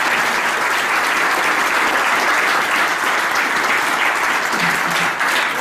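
Theatre audience applauding steadily after a musical number ends.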